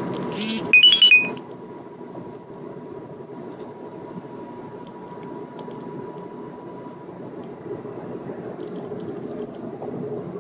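Steady road and engine rumble inside a moving car's cabin at freeway speed. About a second in comes a loud, short electronic chirp of stepped high tones.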